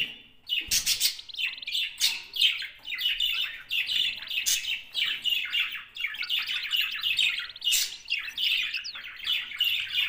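Budgerigar warbling: fast, continuous chirping and chatter. A short low knock comes just under a second in.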